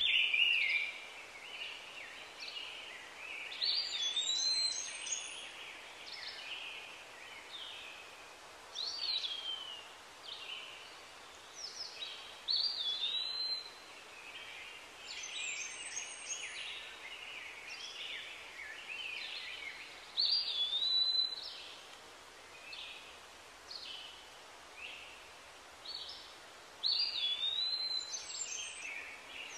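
Birds calling over a steady background hiss: short chirping phrases with sweeping, rising-and-falling whistles come again every few seconds.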